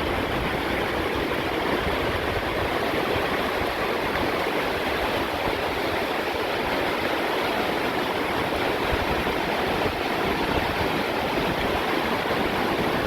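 Swollen mountain creek in high flow, rushing steadily with a full, even roar of water.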